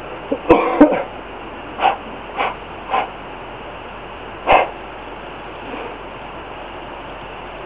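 A dog barking, about six short barks in the first five seconds, then only a steady background hiss.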